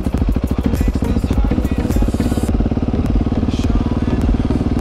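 Husqvarna 701 Supermoto's single-cylinder four-stroke engine running under way, with a fast, even pulsing beat.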